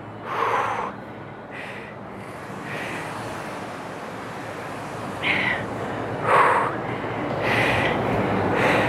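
A woman breathing hard in short, even puffs about once a second, from the exertion of a set of banded squats.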